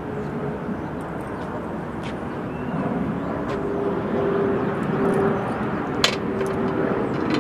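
Steady outdoor rumble of wind, with a faint distant drone that comes and goes and one sharp click about six seconds in.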